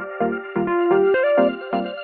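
Background music: an electronic keyboard or synthesizer melody over a steady, regularly pulsing chord accompaniment.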